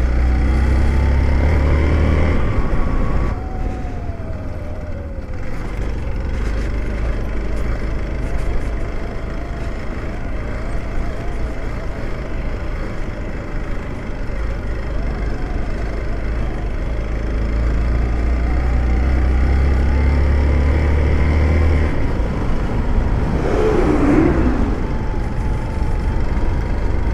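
Motorcycle engine running under way, its pitch rising and falling with throttle and gear changes, over a heavy wind rumble on the rider's microphone.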